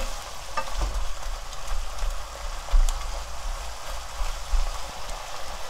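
Shredded dried squid frying in a soy-sauce seasoning and oil in a nonstick pan: a steady sizzling hiss as a spatula stirs it, with a few light clicks from the spatula.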